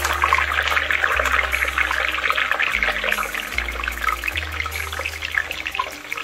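Hot coconut oil bubbling and sizzling hard in a steel kadai, with fresh false daisy (bhringraj) leaves just dropped in and frying: a dense, steady crackle of many tiny pops that eases slightly near the end.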